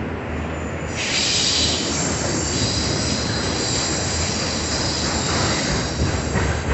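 Autorack freight cars rolling past with a steady rumble. About a second in, steel wheel flanges start squealing on the curve in several high held tones, and a few wheel clacks come near the end.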